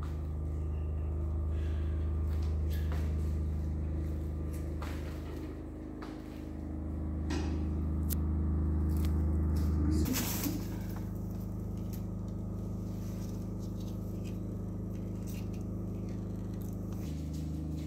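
A steady low hum of several sustained low tones, which changes pitch abruptly a few times, with scattered faint clicks over it.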